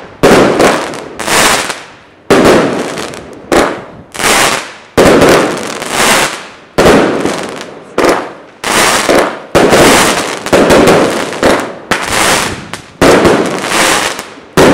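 Rubro Secret Salute firework firing a rapid series of loud salute bangs, about one to two a second, each sharp report fading quickly.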